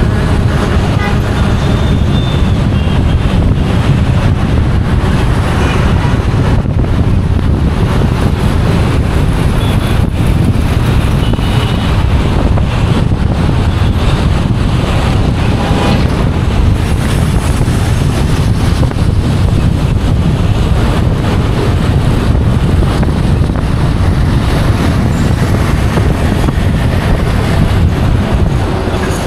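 Steady low rumble of road and wind noise from a moving vehicle in traffic, mixed with the sound of surrounding cars and trucks.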